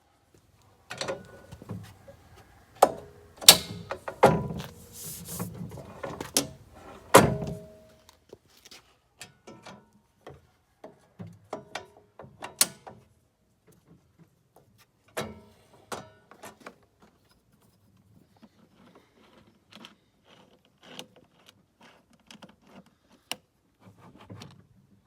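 Irregular knocks, clunks and rattles of objects being handled, loudest and thickest in the first eight seconds, then sparser and fainter.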